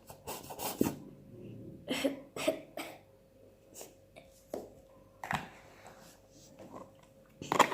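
Intermittent short clicks and squelches of a sticky slime mixture being worked and handled.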